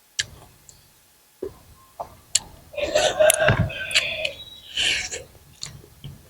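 Close-up eating sounds: scattered sharp clicks and smacks of chewing and utensils, with a louder, noisier stretch of mouth sounds around the middle.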